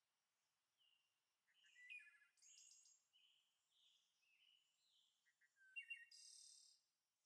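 Near silence with faint bird chirps: a few short chirping calls and trills about two seconds in, and another cluster near the end.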